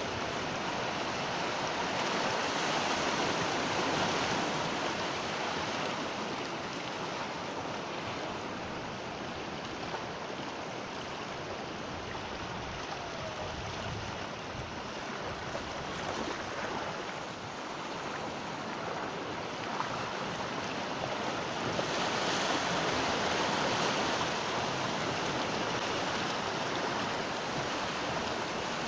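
Sea waves washing onto the shore as a continuous rushing surf, swelling a little twice as waves break.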